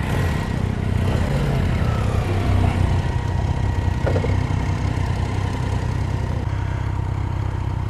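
Motorcycle engine idling close by, a steady low throb.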